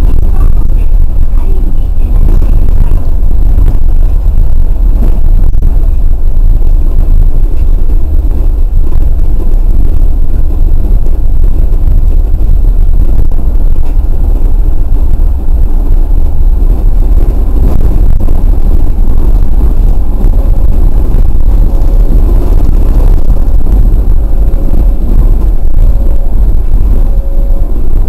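Osaka New Tram 100A-series rubber-tyred people mover running along its concrete guideway, heard from inside the front of the car beside the cab: a loud, steady low rumble of tyres and drive, distorted by clipping, much like a vehicle on an ordinary road. A faint on-off tone joins in the last third.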